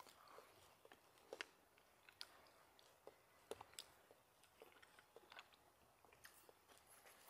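Faint close-up chewing of fresh raspberries: soft, irregular mouth clicks and small crunches, the sharpest about a second and a half and three and a half seconds in.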